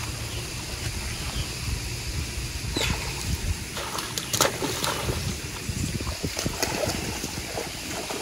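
A hooked cachama thrashing and splashing at the surface of a pond as it is pulled in on the line. It is a run of sharp splashes starting about three seconds in, loudest a little after the middle, over a steady low rumble.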